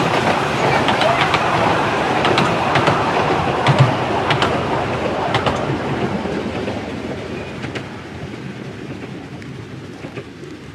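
Miniature railway coaches on 10¼-inch-gauge track rolling past, wheels clicking over the rail joints. The sound fades steadily as the train moves away.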